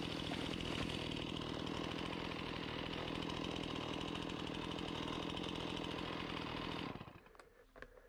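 Gas chainsaw running steadily as it cuts through a tangle of vines and brush, then stopping abruptly about seven seconds in.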